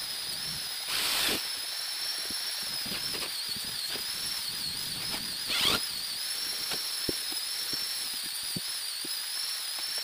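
Corded electric drill running with a steady high whine that wavers slightly in pitch, with two louder, rougher bursts, about a second in and again after five and a half seconds, as the bit works into the cabinet panel.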